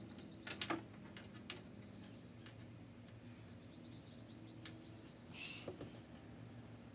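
Faint handling of a tape measure and metal carpenter's square on plywood: a few sharp clicks, the clearest cluster about half a second in. Behind them run repeated rapid, high-pitched chirping trills.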